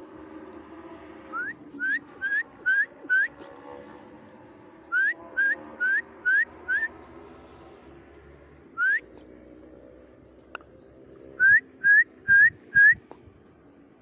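Loud, clear whistled notes, each a short upward sweep, repeated in quick runs: five notes, then five, a single note, and four near the end.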